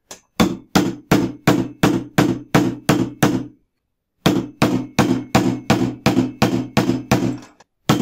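Hammer blows on a metal nut used as a drift, driving a new ball bearing onto the armature shaft of a vacuum cleaner motor. The blows come about two to three a second, each with a short metallic ring, in two runs of about ten with a brief pause about halfway through.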